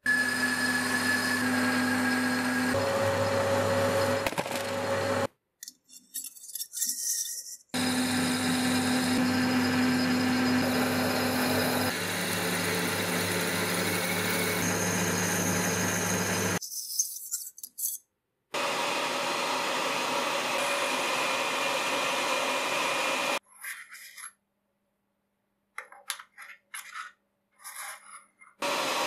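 Metal lathe running under cut, a carbide insert turning a metal shaft and a twist drill boring into the spinning workpiece, in three separate stretches with short gaps between them. Near the end, short clicks and taps as a machined part is handled and fitted into a collet chuck.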